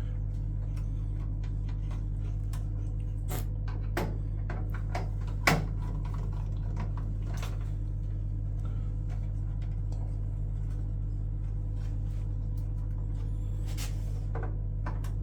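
A steady low hum, with a few sharp clicks and knocks of tools and parts being handled on the boiler, the loudest about five and a half seconds in and another at the very end.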